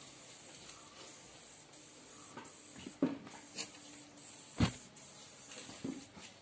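Soft rustling of a cloth towel as a child's hands fold it, with a few short taps and knocks. The sharpest knock comes just after the middle.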